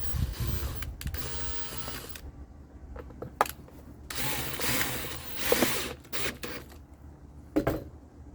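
A small power screwdriver or drill runs steadily for about two seconds, then stops. Sharp clicks and a rattling stretch of plastic vacuum parts being fitted together follow.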